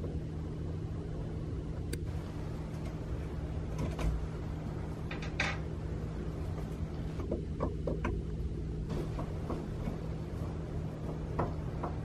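A screwdriver loosening the mounting screws of a wall dimmer switch, giving scattered small clicks and scrapes over a steady low hum.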